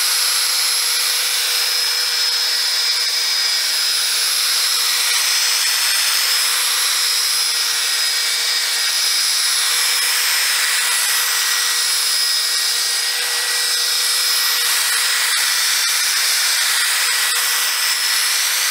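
Makita 18V cordless drill spinning a foam buffing pad against the wet-sanded 2K clear coat of a painted motorcycle fender, buffing with compound. It gives a steady, unbroken motor whine over the hiss of the pad rubbing the paint.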